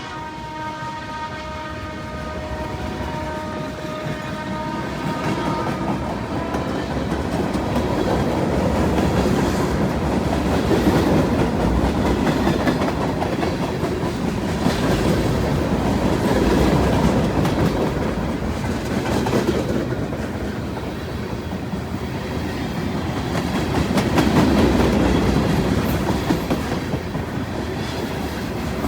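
Norfolk Southern freight train passing close by: a pitched howl fades out over the first several seconds, then the cars rumble past with wheels clicking over the rail joints, the noise swelling and easing.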